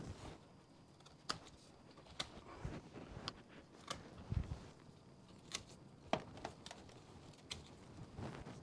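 Bypass pruners snipping grape-cluster stems: a series of sharp, irregular clicks about a second apart.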